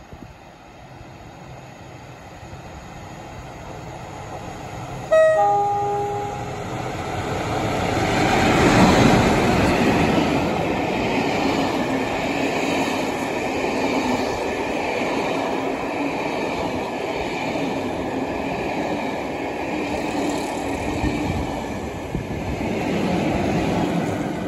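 Two Class 47 diesel locomotives with Sulzer V12 engines, working a train of coaches with one locomotive at each end, pass through a station. The approach grows louder, the lead locomotive sounds its two-tone horn about five seconds in, a brief high note then a longer low note, and then the engine and the coaches' wheels run past steadily until the rear locomotive passes near the end.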